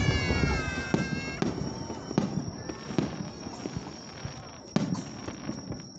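Aerial fireworks shells bursting: sharp bangs and cracks at uneven intervals, with a loud cluster of booms about five seconds in. A falling, whistle-like tone fades out over the first second and a half.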